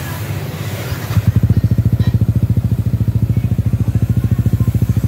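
Yamaha Vixion R's single-cylinder 155 cc four-stroke idling through its stock muffler with the internal baffles cut out, giving a mellow, bassy exhaust beat. The beat gets louder and more distinctly pulsed about a second in.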